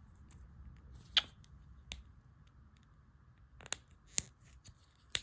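LEGO pieces being handled and pressed together: about five sharp plastic clicks and taps, the loudest about a second in and right at the end, as windows are fitted into a brick wall.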